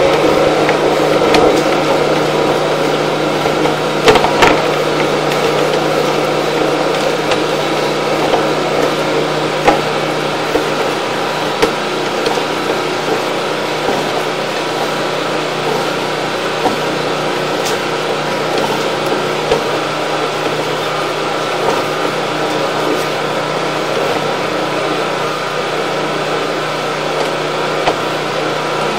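Steady machine hum with a few fixed tones, broken by scattered light clicks and knocks, while a sewer inspection camera's push cable is fed quickly down the line.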